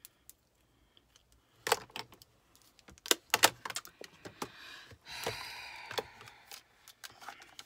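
Makeup cases and packaging being handled: a string of clicks and clacks as plastic compacts are closed, set down and picked up, with a short scraping rustle about five seconds in as a boxed palette is handled.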